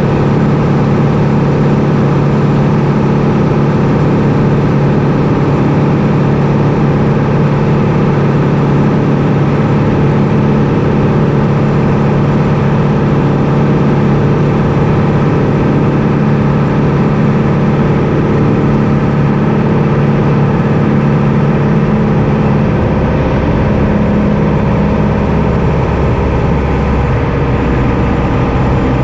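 Light aircraft engine running steadily at a constant, loud drone; its low note shifts slightly about 23 seconds in.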